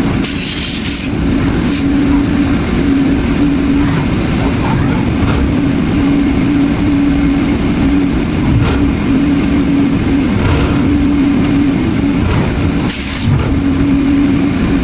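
CNC lathe running through a cut: a steady machine drone with a held hum. Two short bursts of hiss, one at the very start and one near the end.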